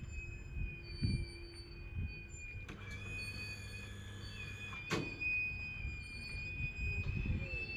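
Passenger train coaches rolling slowly past, their wheels squealing on the rail in a steady high-pitched tone over a low rumble, with two sharp metallic clicks about three and five seconds in.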